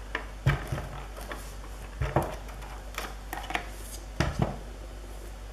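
A hard plastic craft tool being handled on a tabletop: a few knocks and lighter clicks as it is picked up, moved and set down. The loudest knocks come about half a second, two seconds and four seconds in.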